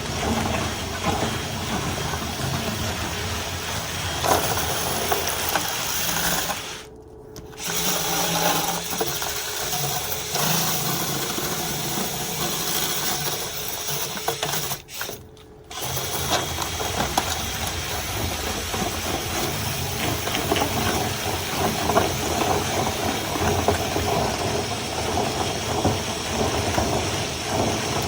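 Dryer vent cleaning equipment running: a steady motor noise with an airy hiss. It drops away briefly twice, about seven and fifteen seconds in.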